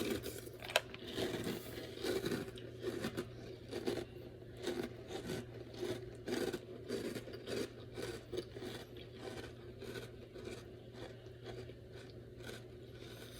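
A person chewing a mouthful of crunchy Fruity Pebbles Crunch'd cereal in milk: a run of irregular crunches that grows fainter toward the end, over a faint steady hum.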